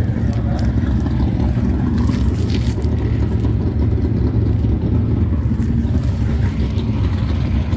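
A steady, low engine rumble that holds an even level throughout, with no revving and no distinct knocks or bangs.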